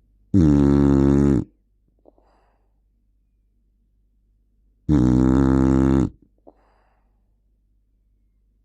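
American Bully dog snoring loudly: two long snores of about a second each, some four and a half seconds apart, each followed by a faint short breath.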